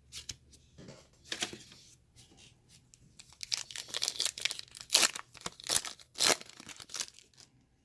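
Foil wrapper of a baseball card pack being torn open and crinkled by hand, in a run of irregular rips and rustles that are busiest in the second half.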